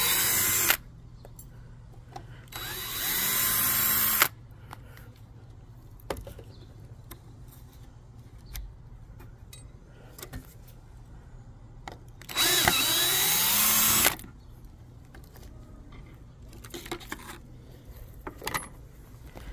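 DeWalt drill backing wood screws out of a mounting bracket, running in three short bursts: one ending just under a second in, one about three to four seconds in, and one about twelve to fourteen seconds in. Faint clicks sound in between.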